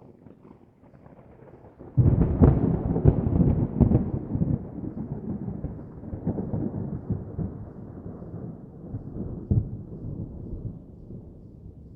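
A deep rumbling crash that starts suddenly about two seconds in, crackles unevenly and slowly dies away, like thunder.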